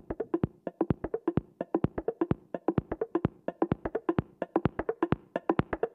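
Outro music: a fast, even pattern of short, clicky percussive notes, about seven a second.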